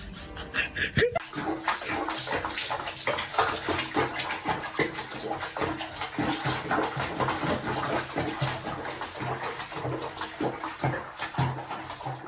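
Water splashing and sloshing in a bathtub around a cat being bathed, starting about a second in.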